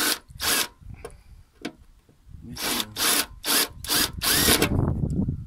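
Cordless drill cutting a hole through the Mazda MX-5's body panel above the wheel arch, run in a series of short bursts as the bit bites through the sheet metal.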